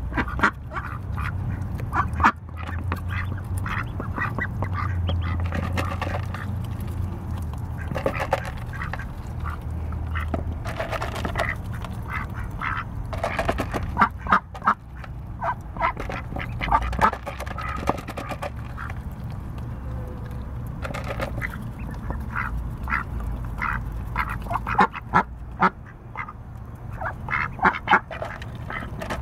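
Pekin ducks quacking in short, repeated bursts on and off throughout, over a steady low background rumble.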